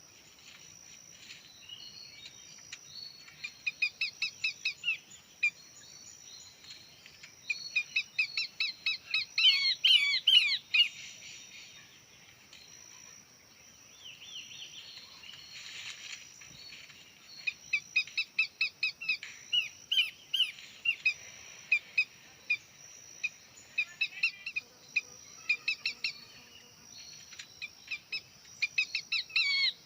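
Bird calls in repeated bursts of rapid chirps, each burst lasting about a second, several seconds apart, over a steady high-pitched tone.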